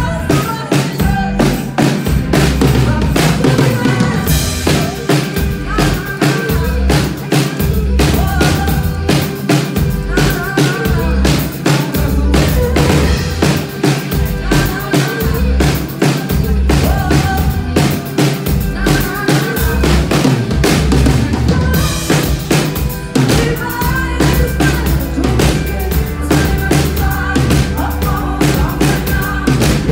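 Live pop band playing loudly, with drum kit, heavy bass and a woman singing into a microphone, heard from among the audience.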